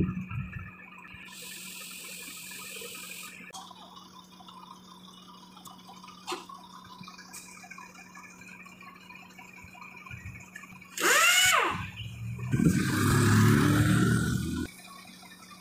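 Compressed air hissing from an air hose, first for about two seconds about a second in, then loudly for about two seconds near the end. Just before the loud hiss comes a short squeal that rises and falls in pitch.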